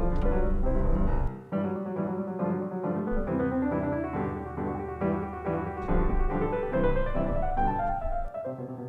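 Background classical piano music, a run of notes with a deep bass underneath that drops away about a second in and returns in patches.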